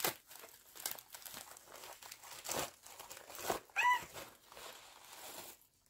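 Paper and plastic packaging crinkling and rustling in irregular bursts as a parcel is unwrapped by hand, with pink tissue paper being pulled out. A brief voiced sound about four seconds in.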